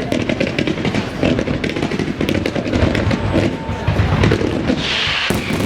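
Fireworks display: a rapid, dense run of bangs and crackles over a continuous low rumble, with a brief hissing burst about five seconds in.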